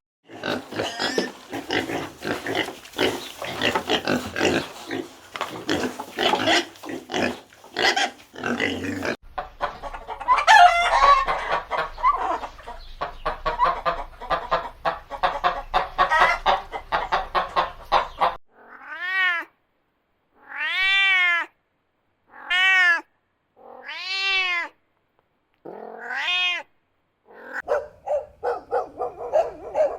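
Animal sounds. A dense, noisy stretch of calls and clatter fills the first half. Then come six separate cat meows, each rising and then falling in pitch, followed by a short run of choppy calls.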